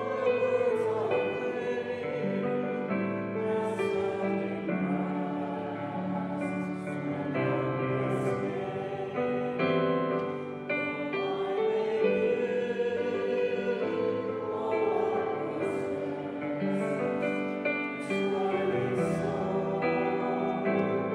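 Slow church music: several voices singing together in long held notes that change pitch every second or so.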